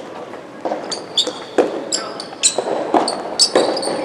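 Soft-tennis rally: the rubber ball struck and bouncing about once a second, with short high shoe squeaks on the court floor between the hits, echoing in a large hall.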